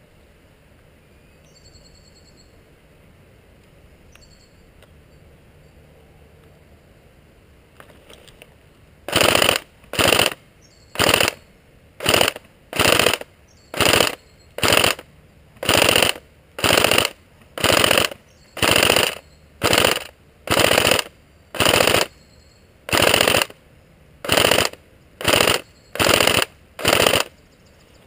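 Airsoft gun firing about twenty short full-auto bursts, roughly one a second, starting about nine seconds in. Faint birdsong can be heard before the firing starts.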